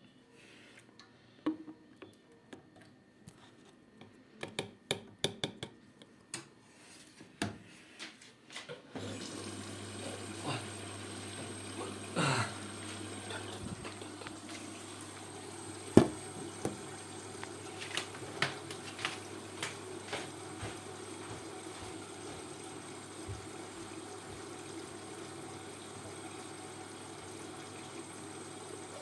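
Ariston 4.5 kg front-loading washing machine starting a wash: scattered clicks and taps, then about nine seconds in the water inlet opens with a hum and water runs steadily into the machine to fill it. A few knocks sound over the filling, the loudest about halfway.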